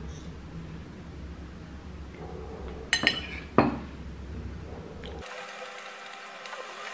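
Two sharp clinks of a table knife against a dish about three seconds in, over a steady low hum; the low hum cuts off abruptly near the end, leaving a lighter, hissier background.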